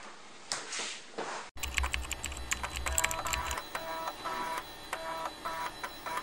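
Brief rustle of a CPU cooler being handled, then after a sudden cut an outro jingle: rapid typing-like clicks over short repeating electronic notes, with a low bass for its first two seconds.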